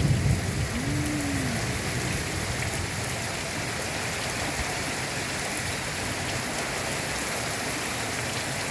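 Torrential thunderstorm rain pouring down, a steady dense hiss; a low thunder rumble dies away in the first moment.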